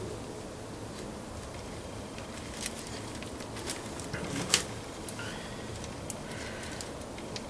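Excess vellum being trimmed by hand from around a banjo head: small scrapes and scattered sharp clicks, the loudest click about four and a half seconds in, over a steady low room hum.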